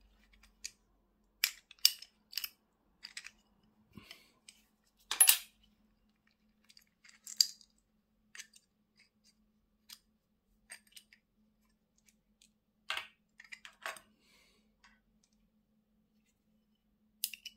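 Small steel parts of a Shimano Alfine 11-speed internal gear hub clicking and clinking as they are handled and worked apart with a small screwdriver: scattered sharp metallic clicks, the loudest about five seconds in.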